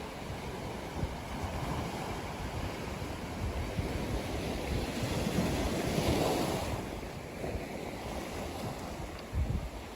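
Ocean surf: waves breaking and washing up the shore in a steady wash, one swelling to its loudest about six seconds in before falling away.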